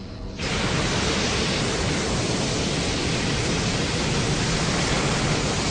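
Designed creature-film sound effect: a steady rushing noise with no pitch. It starts abruptly about half a second in and holds at an even level.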